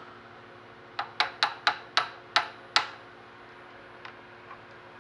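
Seven quick, sharp taps on a lathe fixture whose screws are only finger-tight, knocking it over to centre it on the chuck; each tap rings briefly like metal.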